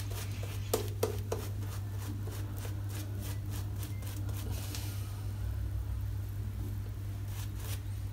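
Boar-bristle shaving brush painting lather onto a face: quick, scratchy brush strokes, about three a second, that stop about five seconds in. A steady low hum underneath.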